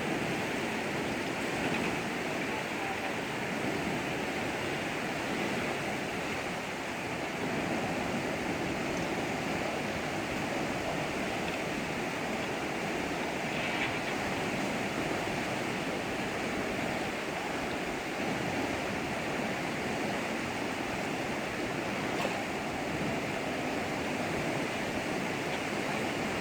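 Steady rush of flowing floodwater current, a constant even noise with no breaks.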